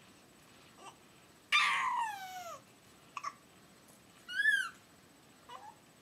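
Baby squealing: a loud squeal about a second and a half in that slides down in pitch, then a shorter high squeal that rises and falls, with a few brief small sounds between.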